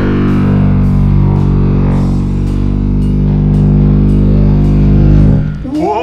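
High-voltage arc from a microwave oven transformer, drawn off a metal fork, buzzing loudly and steadily at one pitch, then cutting off suddenly about five and a half seconds in.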